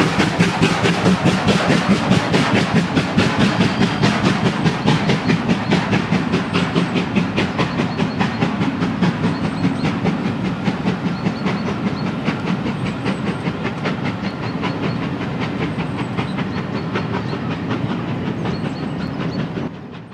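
Steam-hauled train of passenger coaches passing and running away, with a fast, steady rhythmic clatter that slowly fades.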